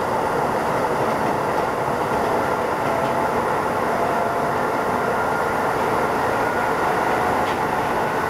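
Keisei 3500 series renewed electric train running, heard from inside the motor car. Its steady rumble of wheels on rail carries a faint whine held above it.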